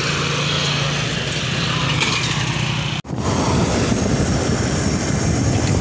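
A small engine runs steadily with an even hum. About three seconds in the sound breaks off abruptly and gives way to a rough, steady rumble of wind and road noise on the microphone of a moving bicycle.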